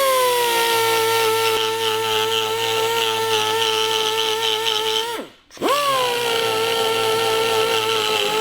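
Handheld power tool motor whining as it spins up, running steadily for about five seconds and winding down, then spun up again for about three more seconds before winding down.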